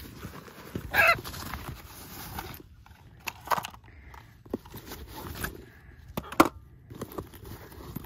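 Rustling and clicks of a bag and drone gear being handled on hard dry ground, with a sharp knock about six seconds in. A harsh macaw call sounds about a second in.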